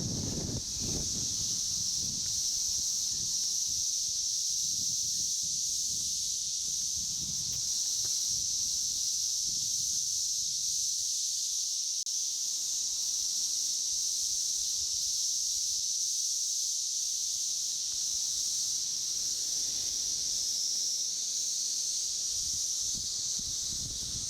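Chorus of Brood X periodical cicadas: a steady, high-pitched, unbroken buzzing drone.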